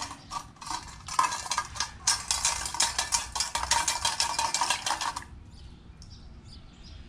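Small hydraulic lifter parts clinking and rattling against a bowl as they are sloshed around in gasoline to wash the dirt out, a rapid run of clinks that stops about five seconds in.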